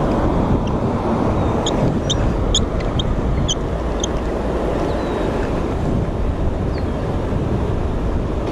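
Steady rush of fast whitewater river current, mixed with wind buffeting the microphone. A few short, faint high chirps come through over it in the first half.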